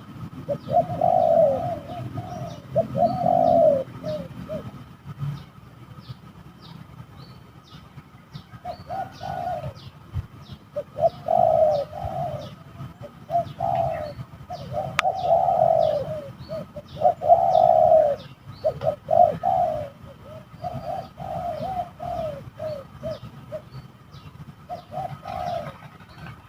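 Spotted doves cooing in repeated phrases, with faint short high chirps of small birds between them.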